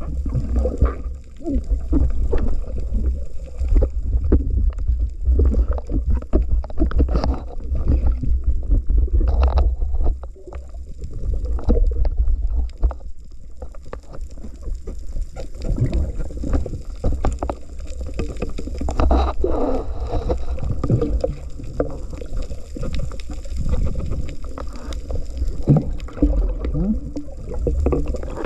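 Underwater water noise picked up by a diver's camera: a steady low rumble of water moving past the housing, with scattered knocks, clicks and gurgling bubbles.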